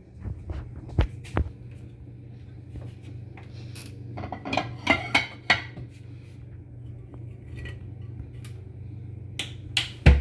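Dishes and cookware clattering: a plate and frying pan being handled, with sharp clinks and knocks that bunch together about halfway through and again near the end, over a steady low hum.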